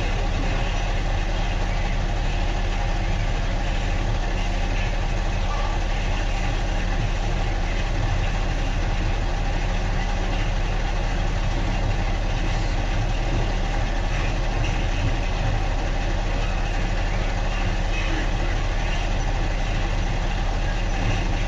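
Steady low hum under a constant noisy background, unchanging throughout.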